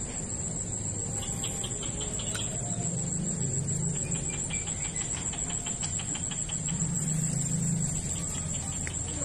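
Insects chirring with a steady high-pitched trill, over a low hum that swells and fades.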